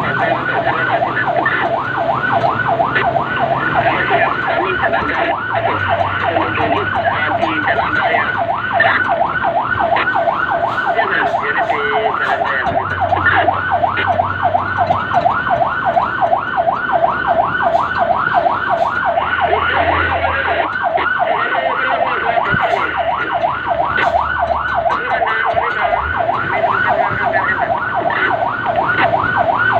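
Fire engine's electronic siren on a rapid yelp, its pitch sweeping up and down three or four times a second without a break. A low engine hum runs underneath, its note shifting now and then.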